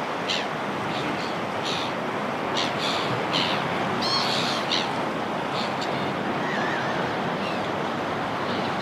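Sea waves washing in a steady rush, with seagulls calling in short, high cries over it, most thickly about three to five seconds in and more sparsely after.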